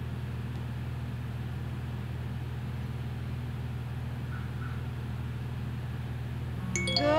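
A steady low hum, even in level throughout. Near the end a song starts, a voice singing over music.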